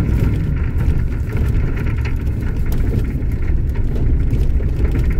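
Dodge Ram pickup driving over rough, snow-covered field ground: a steady low rumble of engine and drivetrain, with many rattles and knocks from the rusty truck's body and suspension as it bounces.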